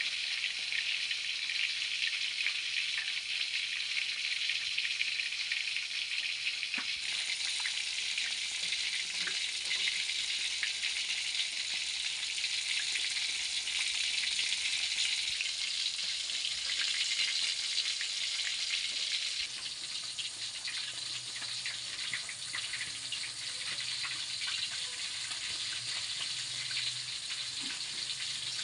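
Pieces of red arowana frying in shallow oil in a wok: a steady sizzle with many small crackling pops. The sizzle changes character abruptly a few times.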